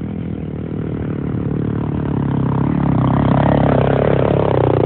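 Dirt bike engine running under throttle as the bike climbs over rock toward the listener. It grows louder as it closes in, and its pitch falls near the end as it passes close by.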